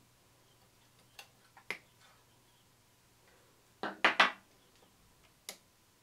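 Scattered sharp metallic clicks and clinks of a small hand tool against the mixer's metal chassis and wiring terminals, with a short clatter of three or four quick knocks about four seconds in.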